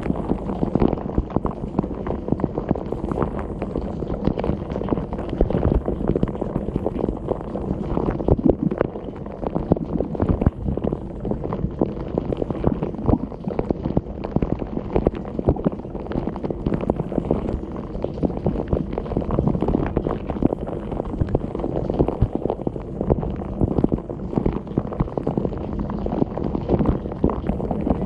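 Dishwasher wash cycle heard from inside the tub: spray-arm jets of water splashing and drumming steadily against the dishes, racks and camera, a dense, dull, mostly low-pitched wash of splashing.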